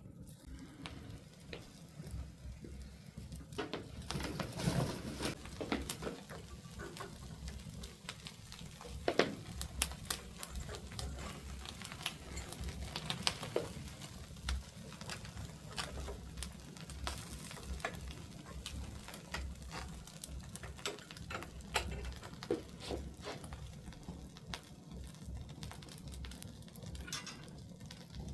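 Wood fire crackling in a fireplace, with many irregular sharp pops and a few louder ones about nine to ten and thirteen seconds in, over a low steady hum.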